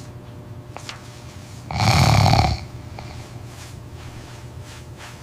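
Sleeping dog snoring: one loud snore of just under a second, about two seconds in, with fainter breaths around it.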